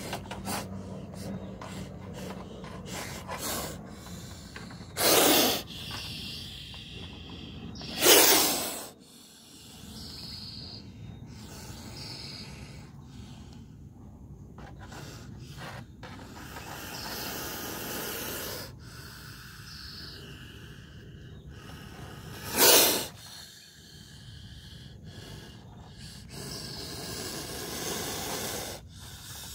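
A cobra hissing three times from inside a wire-mesh trap, each hiss a short, loud blast of breath about half a second long. The first two come about three seconds apart and the third about fourteen seconds later, with faint rustling and clicks between them.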